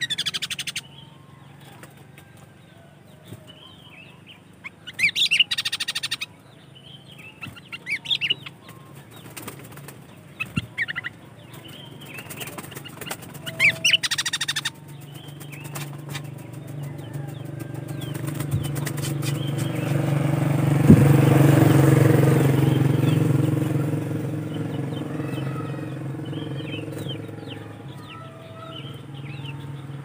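Sooty-headed bulbul calling in short chattering bursts through the first half. From about halfway a low engine hum swells, peaks about two-thirds through and slowly fades, as a motor vehicle passes, with faint bulbul calls still over it.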